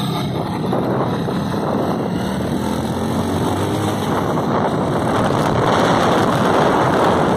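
Wind rushing over the microphone of a moving motorcycle, with the engine running underneath, slowly growing louder.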